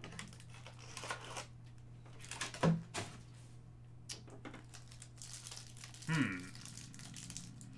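A cardboard trading-card hanger box is torn open, and the cellophane-wrapped stack of cards inside is handled and unwrapped. The sound is crinkling plastic wrap and paper with scattered small clicks, and two brief louder sounds come about two and a half and six seconds in.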